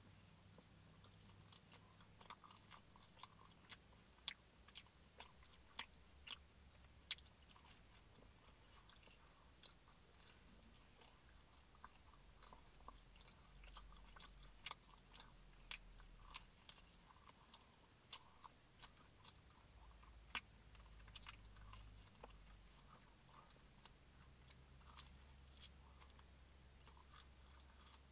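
A person chewing pepperoni pizza close to the microphone: irregular soft wet clicks and smacks of the mouth, several a second, over a faint low hum.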